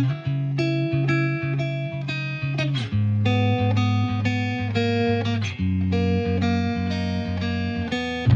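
Background music played on plucked guitar: a steady rhythm of picked notes over a bass line that shifts pitch about three seconds in.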